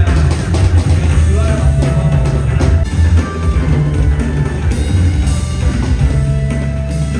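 Live rock band playing loudly at a concert sound check, with heavy bass and a drum kit in front and held instrument notes above.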